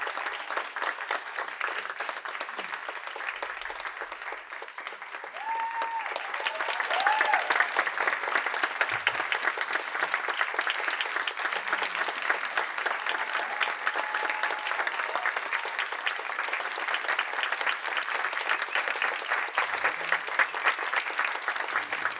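Theatre audience applauding a performer's curtain-call bow, steady dense clapping that grows louder about six seconds in.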